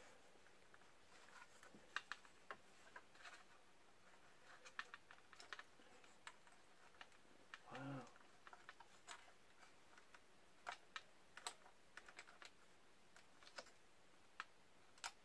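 Faint, scattered small clicks and taps of plastic drone parts and cable connectors being handled and fitted by hand, with a short hummed murmur of a voice about eight seconds in.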